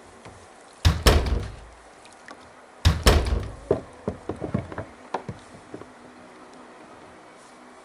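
Hollow thumps and knocks on a fishing kayak: two loud clusters of two or three knocks each, about a second in and about three seconds in, followed by a run of smaller clicks and taps.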